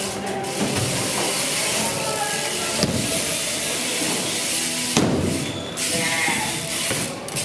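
BMX bike rolling over wooden ramps: a steady hiss of the tyres on the plywood with the rear hub's freewheel buzzing, a sharper knock about five seconds in, and some short voices from the riders.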